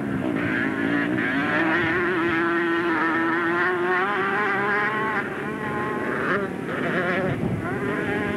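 Three-wheeled ATV engine revving hard as it races over a dirt track, the engine note holding high and wavering with throttle, dipping briefly about five seconds in and again about six and a half seconds in.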